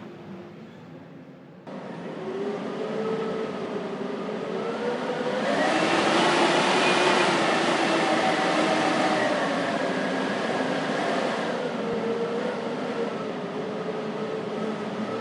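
Howling blizzard wind, a noisy rush threaded with whistling tones that waver up and down in pitch. It jumps in level about two seconds in, then swells into a stronger gust about five seconds in and eases after about eleven seconds.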